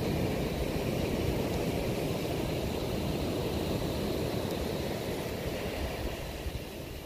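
Wind buffeting the microphone: a steady low rumble that eases a little toward the end.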